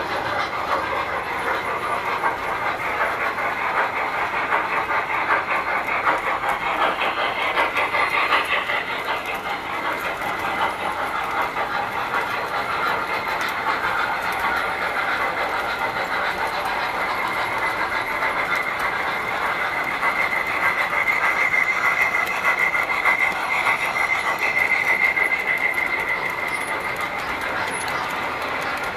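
Tinplate model trains running: metal wheels clattering steadily over the track, with a high, steady squealing tone that grows louder about two-thirds of the way through.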